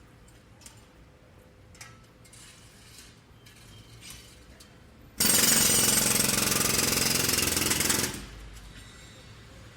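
Pneumatic jackhammer breaking concrete, starting about five seconds in with a loud, rapid hammering that lasts about three seconds and then stops. Before it, a low construction-site background with a few scattered knocks.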